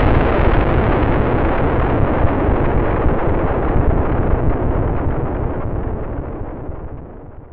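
Long rumbling tail of a boom sound effect: a dense, deep, noisy rumble that slowly weakens and fades out near the end.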